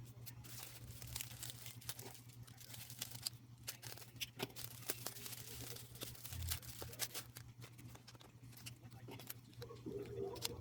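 Album packaging being opened and handled: plastic and paper rustling and crinkling, with many small sharp clicks and snaps. A steady low hum runs underneath.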